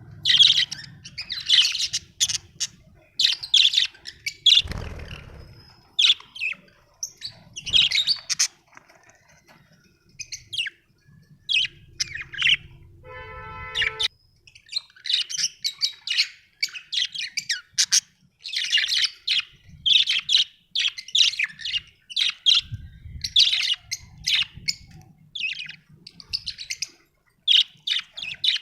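Budgerigars chirping and chattering in quick, irregular bursts of high, scratchy calls, with a brief steady buzzing note about halfway through.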